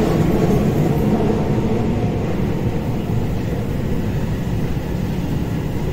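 Subway train running through a tunnel, heard inside the front car: a steady rumble of wheels and running gear, with a low hum that fades out about two seconds in.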